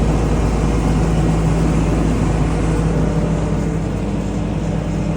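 Vehicle driving, heard from inside the cab: a steady engine drone with a constant low hum and road noise.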